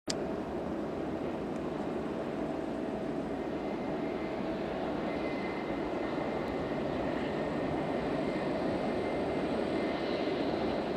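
Airbus A319 airliner on final approach, its twin CFM56 turbofans giving a steady jet rumble with a faint whine, growing slightly louder as it nears.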